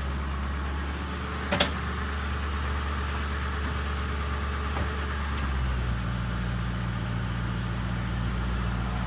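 Ford 4.6 L V8 engine idling steadily, its idle note changing about five and a half seconds in, with a single sharp click about a second and a half in.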